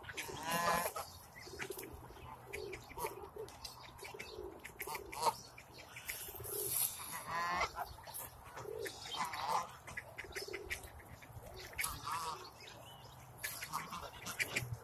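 Canada geese honking, a short call every few seconds, with softer low calls between the honks.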